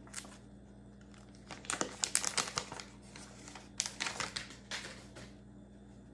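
Plastic wrapper of a trading-card value pack crinkling as it is handled and opened, in two spells of rustling about a second and a half in and again near four seconds.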